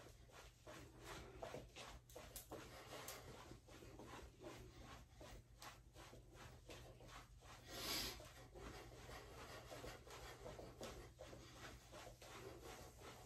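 Faint, soft thuds of sock-clad feet jogging in place on a wooden floor, a steady two to three steps a second. A brief louder rustle about eight seconds in.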